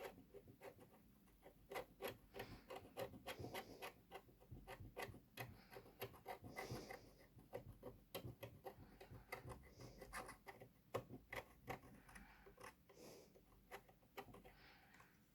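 Faint scratching with many small ticks and clicks: a small blade scraping the green solder-mask coating off a radio circuit board's copper solder pads to bare them for soldering.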